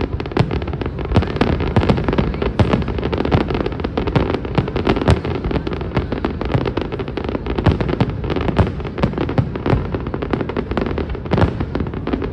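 Aerial fireworks going off in a rapid barrage: dense bangs and crackles many times a second over a continuous low rumble.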